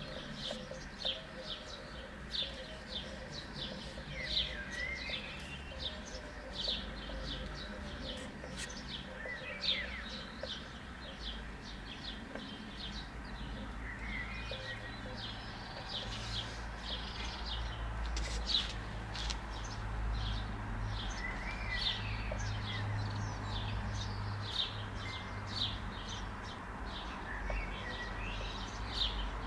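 Birds chirping: many short, quick chirps, with a brief sliding call coming back every five or six seconds. A low steady rumble runs underneath and grows somewhat louder about halfway through.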